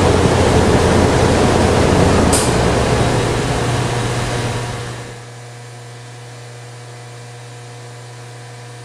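Loud, steady rush of equipment cooling fans and air conditioning in a broadcast transmitter room, with a single sharp click about two and a half seconds in. The rush fades away over the next couple of seconds, leaving a steady electrical hum.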